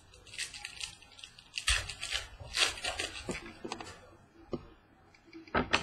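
Baseball card packs and cards being handled: wrappers crinkling and cards rustling and sliding, with sharper crackles about a second and a half in, again near the middle, and near the end.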